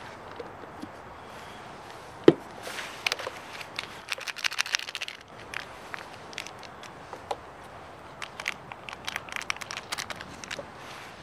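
A single sharp knock on a wooden picnic table about two seconds in, then crinkling of packaging and scattered light taps and clicks as a paper-lidded cup of instant noodles and cooking gear are handled.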